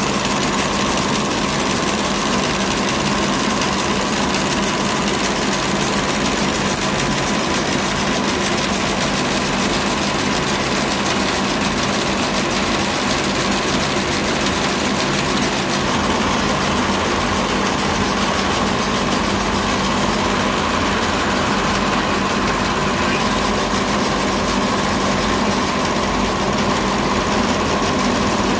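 Plastic strip-making machinery running steadily, its motors and rollers drawing extruded plastic strip through a water cooling trough. It gives a loud, even mechanical noise with a constant whine.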